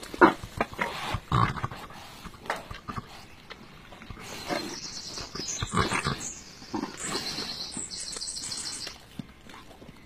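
Short, irregular animal calls, loudest near the start, among rustling straw, with a high, rapid chirping in the background from about four seconds in.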